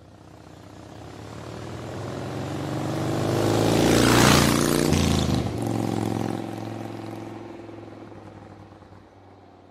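A vehicle engine sound effect that swells to a loud peak about four seconds in, with a rushing whoosh at the peak, then fades away.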